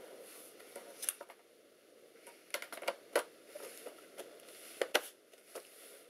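Plastic bottom cover of an Alienware M14x laptop being set back onto the chassis and pressed into place: a handful of sharp, separate plastic clicks and knocks.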